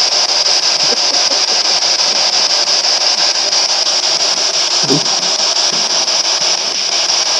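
Loud, steady radio static hissing from a handheld spirit box, strongest in a high band. A brief low sliding sound breaks through about five seconds in.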